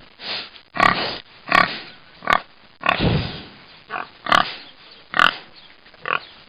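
An animal calling: about ten short calls in quick succession, roughly one every half second to second.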